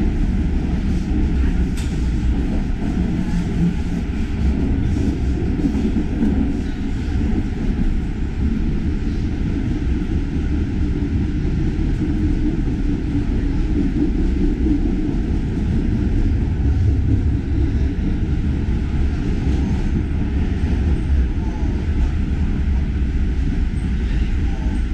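Metro train running through a tunnel, heard from inside the carriage: a loud, steady low rumble of wheels on rails and running gear.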